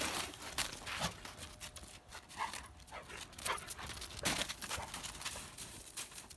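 Dogo Argentino nosing, digging and scrambling through snow: irregular crunches and scuffs of snow, with short breathing sounds from the dog.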